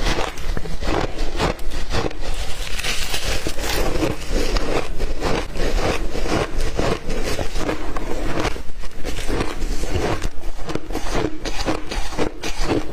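Ice being chewed right at the microphone: a continuous run of loud, crisp crunches, several a second.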